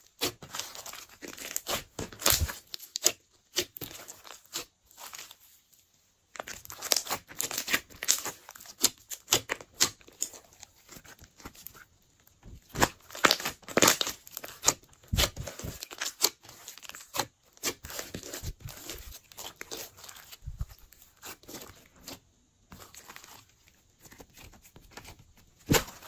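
Hands squeezing and kneading glossy slime: irregular wet clicks, crackles and pops of trapped air, with a few brief pauses.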